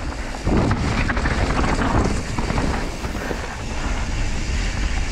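Wind buffeting an action camera's microphone as a Pyga Hyrax enduro mountain bike rolls fast down a dirt trail. Tyres rumble over the ground, with frequent short knocks and rattles from the bike over bumps.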